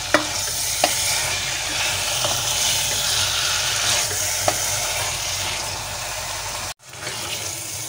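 Bitter gourd, onions and tomatoes frying in oil, sizzling steadily while a spatula stirs and scrapes through them, with a few light taps against the pan and a low steady hum underneath. The sound cuts out suddenly for a moment near the end.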